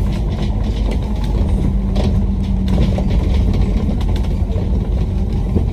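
Double-decker bus running along a city road, heard from inside the upper deck: a steady low engine and road rumble with an engine hum that fades about halfway, and light clicks and rattles from the bus body.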